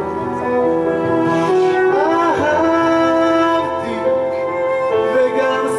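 A man singing live into a microphone, holding long notes over instrumental accompaniment; the pitch wavers and glides about two seconds in.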